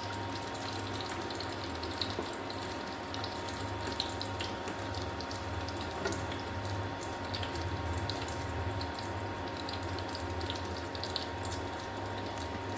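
Food deep-frying in a pan of hot oil: a steady sizzle with scattered small crackles and pops, meaning the snack is at the end of its frying.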